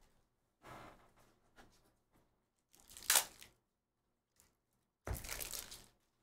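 Foil trading-card pack wrapper crinkling and basketball cards being handled and shuffled through by hand, in three short bursts, the loudest about three seconds in.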